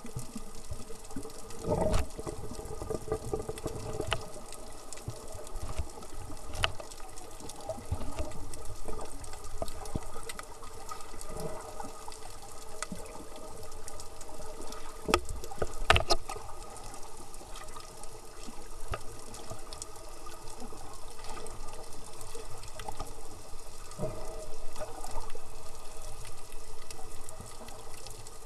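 Muffled underwater sound from a camera held beneath the sea surface: a continuous watery wash with scattered clicks and knocks, and a faint steady hum underneath. Stronger surges come about two seconds in and again around the middle.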